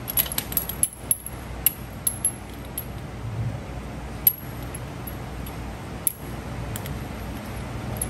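Small metal parts clinking as they are handled and set down: a run of quick clinks in the first two seconds, then a few single clicks, one sharp one about four seconds in. A steady low hum runs underneath.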